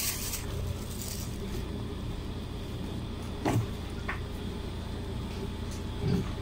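A clear plastic takeout food container being handled: a few light knocks and clicks, the loudest about three and a half seconds in, as it is lifted and tilted. A steady low hum sits underneath.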